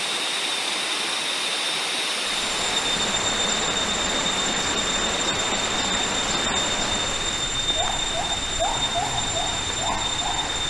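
Rainforest insect chorus: a steady hiss with an even, high-pitched whine. About eight seconds in, an animal begins a repeated short rising call, about three a second.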